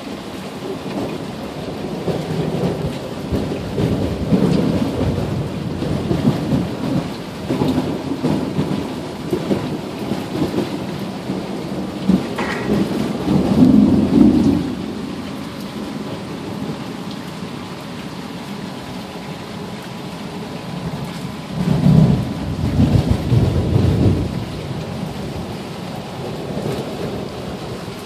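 Steady rain falling through a thunderstorm, with two rolls of thunder rumbling up and fading: one about halfway through and another later on.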